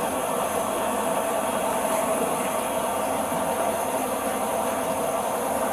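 Steady, even rushing noise with a faint high hiss, without clear breaks or single events.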